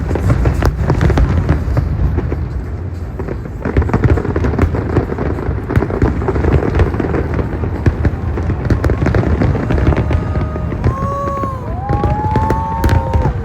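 Fireworks display going off continuously: a dense run of bangs and crackles over a heavy low rumble. Several whistling tones rise and fall near the end.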